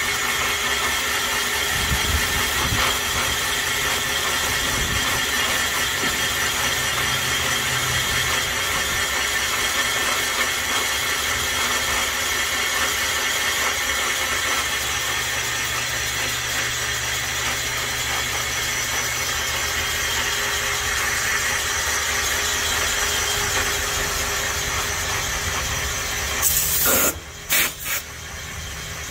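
Portable cylinder boring bar running steadily while reboring a cylinder of a 327 small-block Chevy block, a constant whine made of several steady tones. Near the end it gives way to several short, loud blasts of hiss.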